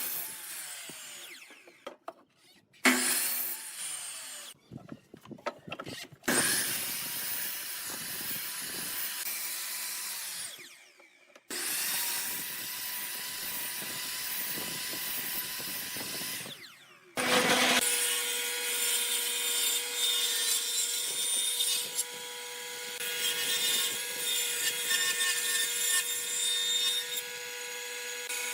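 Woodworking tools cutting and rubbing on wood in several short stretches with abrupt breaks between them. About two-thirds of the way in, a power tool starts and runs steadily on the wood with a constant whine.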